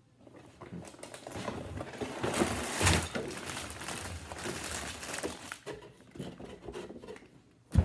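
Plastic LEGO parts bags and cardboard packaging rustling and crinkling as a set box is unpacked, with a sharp knock near the end.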